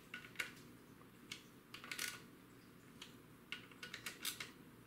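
Faint, irregular light clicks in short clusters, a hand wrench tightening the small 8 mm bolts on the oil filter cover of a four-stroke dirt bike engine.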